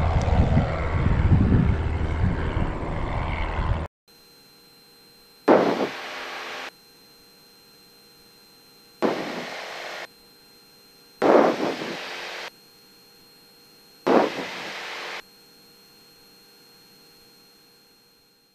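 Piper Warrior II's four-cylinder Lycoming engine at takeoff power as the plane climbs out on a touch and go, a loud rushing engine noise that cuts off suddenly about four seconds in. After that it is quiet, with four short bursts of noise about a second each.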